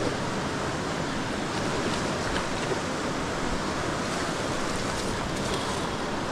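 Steady rush of water from river rapids, with one sharp knock right at the start.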